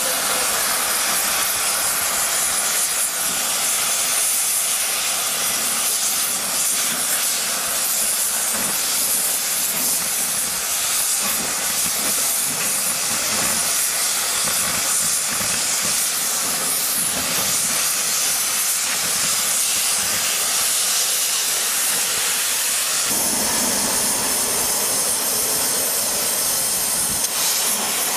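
Oxy-fuel cutting torch burning through a steel rail, a steady loud hiss of the gas jet. The tone shifts slightly near the end.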